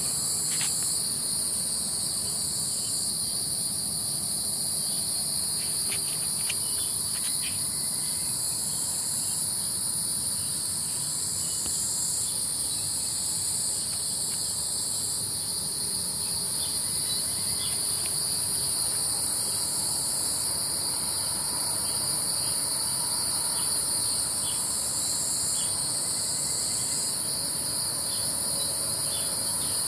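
Insects chorusing outdoors: a steady, high-pitched shrill that does not let up, with faint short ticks here and there.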